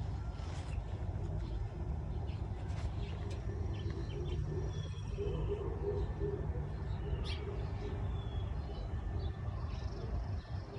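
Outdoor ambience: small birds chirping here and there over a steady low rumble.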